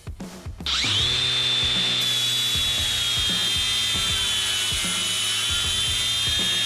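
DeWalt DCG416 brushless cordless angle grinder on a 60 V FlexVolt battery, spinning up sharply about a second in and then grinding a steel bar with a 5-inch flap disc. It gives a steady high whine whose pitch sags slightly as it works under load.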